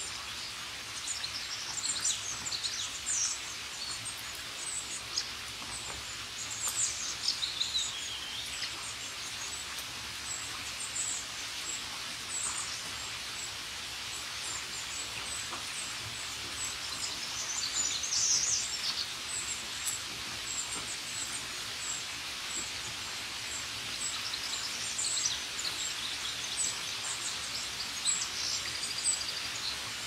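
Steady rain falling on leaves, with songbirds chirping and twittering over it in several bursts and a thin high call repeated through it.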